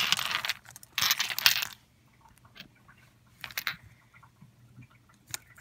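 Plastic Wallflowers refill bulbs clattering and rustling as they are gathered and moved by hand over carpet: two short bursts in the first two seconds, then a few faint clicks and one more brief clatter.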